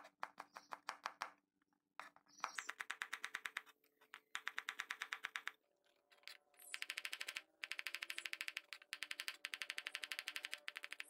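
Kitchen knife finely chopping garlic cloves on a wooden cutting board: quick runs of knife taps against the board, each run lasting about a second with short pauses between, about six runs in all.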